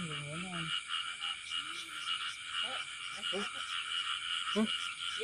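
Night chorus of many frogs calling at once, a steady, rapidly pulsing trill with several calls a second.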